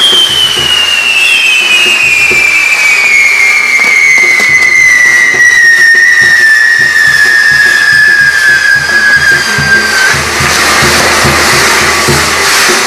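Fireworks tower (castillo) burning, with a long whistle from its fireworks falling slowly in pitch and cutting off about ten seconds in, and a second whistle joining about a second in. Under it runs a steady hiss and crackle of burning pyrotechnics and a low drum beat.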